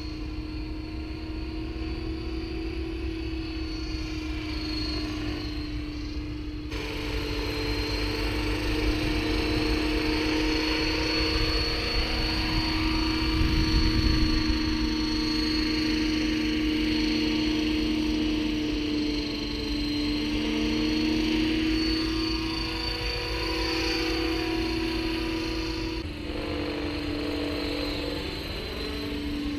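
Electric RC model helicopter, an Align T-Rex 600 ESP in a Hughes 500E scale fuselage, flying: a steady high-pitched whine of motor and rotor blades that shifts a little in pitch as it moves, loudest near the middle as it passes low and close, over a rough wind rumble on the microphone.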